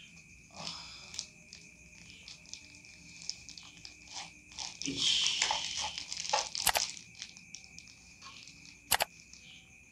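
Plastic packaging crinkling and rustling as it is handled and unwrapped, with irregular crackles, a denser rustle about halfway through and a couple of sharp clicks.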